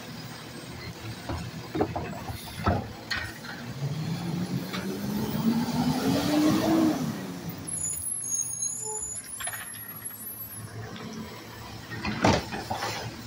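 Automated side-loader garbage truck at work: a few clanks as the arm sets an emptied cart back down, then the diesel engine revs up as the truck pulls forward and eases off again, and a loud clank near the end as the arm grips the next cart.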